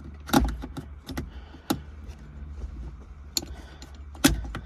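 Irregular metallic clicks and knocks of a gear-change cable end being worked into the slot on a short shifter's linkage, with two sharp knocks: one about a third of a second in and one near the end.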